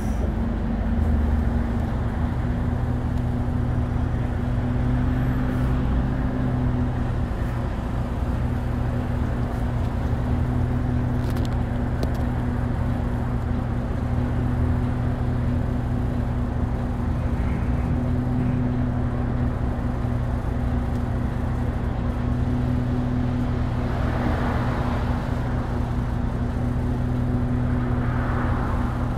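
Mitsubishi Fuso Aero Star city bus's inline-six turbo-diesel idling steadily, heard from inside the cabin as a low, even hum with the bus standing still. A couple of brief rushing sounds come near the end.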